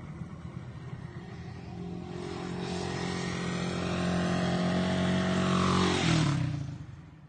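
Motorcycle with an aftermarket Akrapovic R8 muffler running, its exhaust note steadily growing louder for about six seconds, then fading away quickly near the end.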